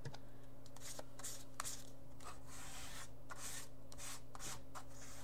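Paint being scraped across an index card with a plastic card: repeated short, hissy scraping strokes, roughly one a second.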